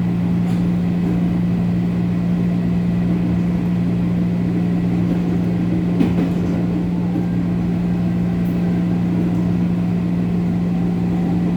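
JR 205 series electric train running at a steady high speed, heard inside a motor car: a constant hum from the traction motors and gears over steady wheel-and-rail noise. One sharp knock about six seconds in.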